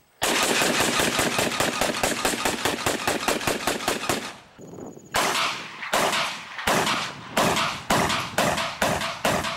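Rifle gunfire: a long burst of rapid automatic fire for about four seconds, then after a brief pause a string of separate single shots, about one or two a second.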